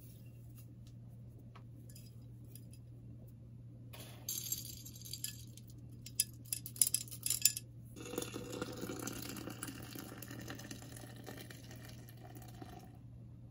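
Glass or crockery clinking, with a cluster of sharp clinks in the middle, then about five seconds of steady rushing noise that stops near the end. A steady low hum runs underneath.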